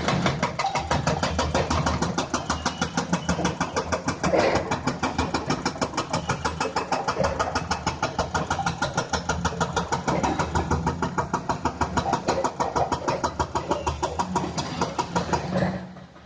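Hyundai excavator's diesel engine running, with a rapid, even clatter and a deep low hum; the sound drops away near the end.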